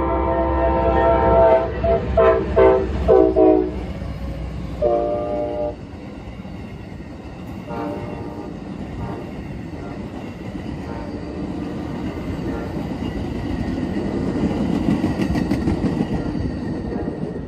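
Amtrak passenger train's diesel locomotive sounding its horn at a grade crossing: a long blast that ends about a second and a half in, a quick run of short blasts, then one more short blast. After that comes the rumble and wheel clatter of the passenger cars rolling past.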